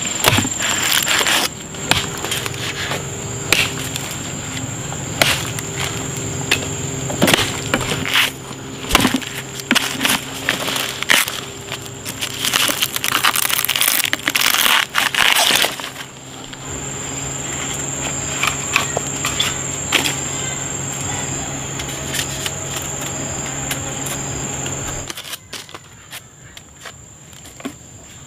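Large knife blade hacking into the base of a bamboo shoot: a run of sharp chops and cracks, thickest about halfway through, over a steady high insect drone and a low hum. Everything drops to quieter handling sounds about three seconds before the end.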